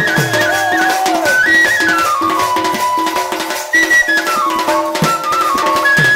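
Bamboo flute playing a folk melody in stepwise descending runs over a steady held lower note, with a two-headed barrel drum struck by hand; its deep strokes slide down in pitch and come mostly near the start and the end.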